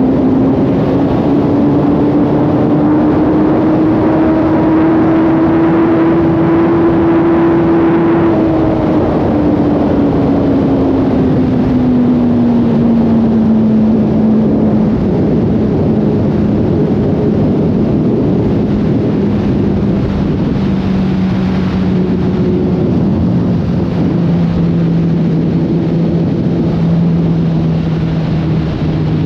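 Kawasaki Z900RS Café's inline-four engine running under way. Its note rises gently for the first several seconds, then falls slowly through the rest as the bike eases off, over a steady rush of noise.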